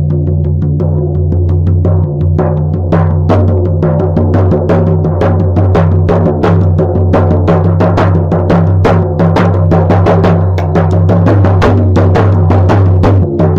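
Shamanic hand drum beaten in a fast, even rhythm of several strokes a second, its low ring carrying on between strokes: drumming for a shamanic journey. The beat grows louder about two seconds in.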